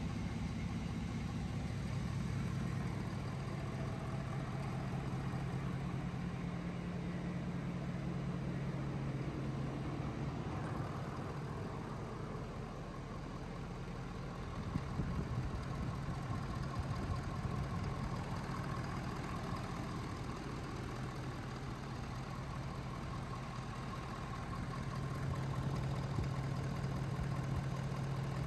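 6.7L Power Stroke V8 turbo diesel idling steadily, with a few light knocks about halfway through.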